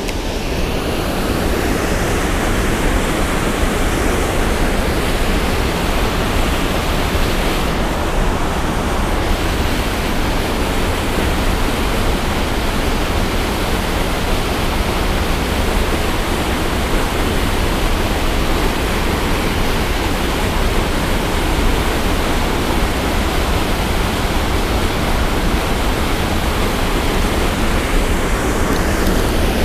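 Spillway outflow: water rushing steadily over and below a concrete dam spillway, a loud, unbroken churning white-water noise.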